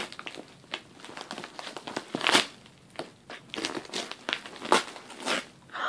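Glossy gift wrapping paper crinkling and rustling as a package is pulled open by hand, in irregular crackles, the loudest a little over two seconds in.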